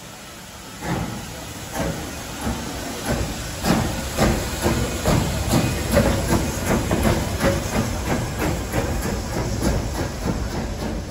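LMS 'Jinty' 0-6-0 tank engine 47298 starting away: steam exhaust beats begin about a second in and come faster as it gathers speed, over a steady hiss of steam escaping from its cylinders.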